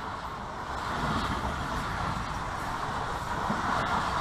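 Pakistan Railways passenger coaches rushing past close by at speed, a steady rumble and rush of wheels on rail that grows louder about a second in.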